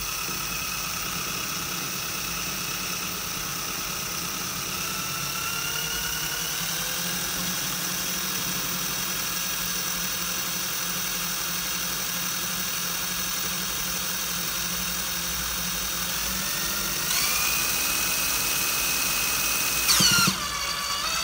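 Cordless drill spinning a brushless washing-machine motor used as a generator: a steady whine that climbs in pitch about five seconds in, and again at about sixteen seconds, where it gets louder. Near the end the whine breaks abruptly and carries on at a different pitch, as the wind/solar charge controller brakes the motor by sending current into its coils.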